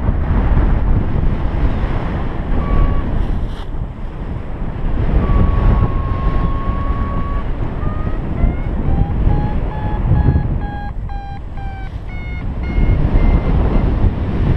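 Wind buffeting the microphone of a camera on a flying paraglider pilot. Over it a variometer sounds: a steady tone about a third of the way in, then quick beeps from about halfway that step higher in pitch near the end. Rising beeps are how a vario signals that the glider is climbing.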